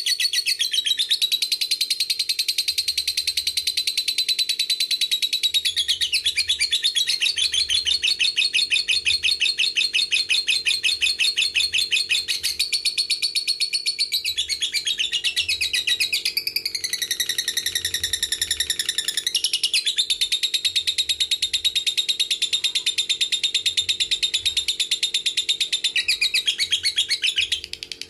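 Lovebird 'ngekek': one long, unbroken, very rapid high-pitched chattering trill. A little past halfway it changes its note for about three seconds, then goes back to the trill, which stops just before the end.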